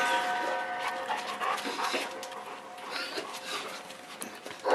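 Presa Canario dogs panting. A steady high tone fades out about a second in.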